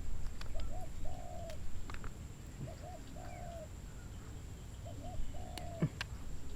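A bird calling: the same short phrase, two brief notes then a longer held note, repeated three times about two seconds apart, with a couple of faint clicks near the end.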